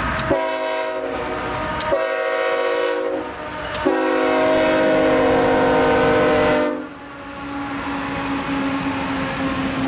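CSX freight locomotive's multi-chime air horn sounding three blasts, the last the longest and loudest, followed by the steady running noise of the train.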